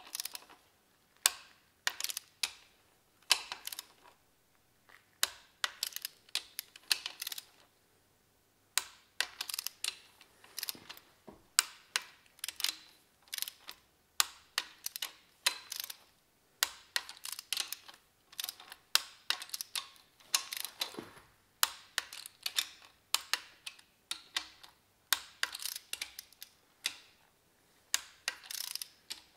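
Ratcheting torque wrench clicking in quick runs as the main bearing cap bolts of a BMW M52 engine block are run down and tightened to their first 20 Nm stage, with short pauses between bolts.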